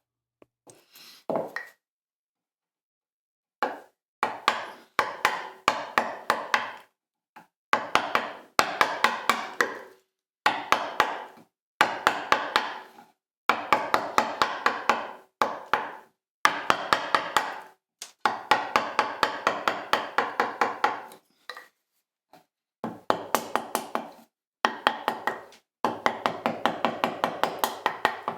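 Mallet tapping a chisel into a wooden bench top, chopping out waste from a shallow recess for a knot patch. The strikes come in quick runs of about four a second, with short pauses between the runs.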